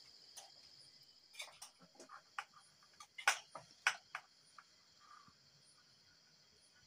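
A steel spoon clinking and scraping against a steel karai and a steel plate as kauri dumplings are dished out, a run of sharp clinks in the middle with the two loudest close together. A steady high chirring of crickets goes on behind.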